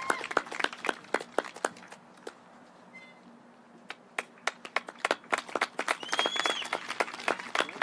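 Hand clapping, heard as separate sharp claps, that dies away about two seconds in and picks up again around four seconds.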